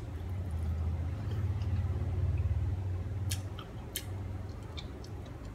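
Eating sounds: chewing mouthfuls of rice and greens, with a few sharp clicks of chopsticks against a porcelain bowl, two clear ones past the middle, over a steady low rumble.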